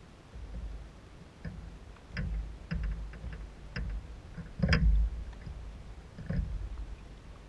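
Tennis ball bouncing on a hard court: a handful of sharp knocks at uneven intervals, the loudest about two-thirds through, over a low wind rumble on the microphone.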